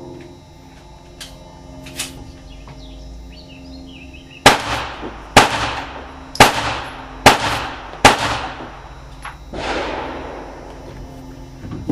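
Five 9mm pistol shots fired about one a second, each ringing out in the indoor range. A softer, duller bang follows about a second and a half later.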